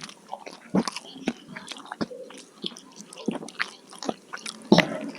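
Close-miked chewing and biting of food, a run of sharp, crisp crunching clicks with one loud bite near the end.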